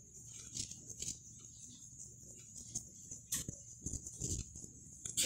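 Sketchbook paper pages being handled and turned: a few short paper rustles and taps, the loudest near the end, over a steady high hiss.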